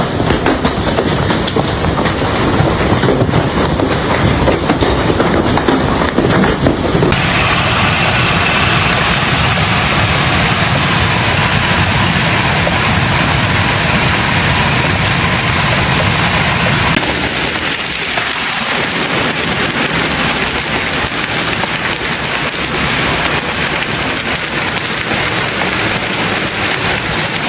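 Heavy hail pelting down: a loud, dense, continuous clatter of hailstone impacts. The sound changes character abruptly twice, about a quarter of the way in and again just past halfway.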